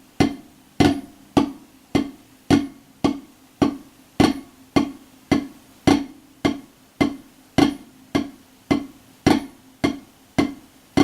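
Drumsticks striking a drum in slow, even strokes, slightly under two a second, each with a short ring: the Swiss Army triplet rudiment (right flam, left, right) played at a slow demonstration tempo.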